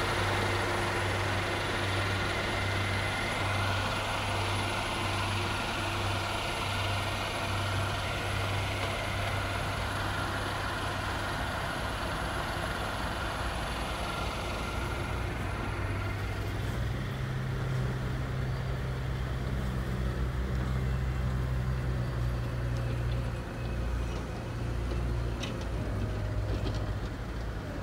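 Heavy snow-clearing machinery running: a steady engine hum that moves to a higher note about two-thirds of the way through, with a thin high whine over the first half.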